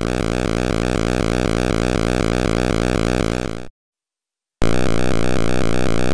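Synthesized, video-game-style helicopter rotor sound: a rapid, steady, evenly repeating chop. It cuts off suddenly about three and a half seconds in, and after about a second of silence a second, slightly louder helicopter chop starts.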